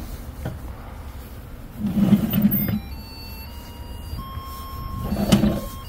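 Metal drawer of a sweet potato roasting oven sliding open on its runners. It gives a louder grinding scrape about two seconds in and again near the end.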